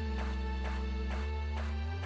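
Electronic background music with a steady beat and sustained bass notes.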